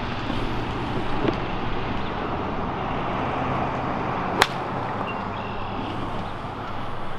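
A golf ball struck once with a 9-iron, a single sharp click about four and a half seconds in, over steady outdoor background noise.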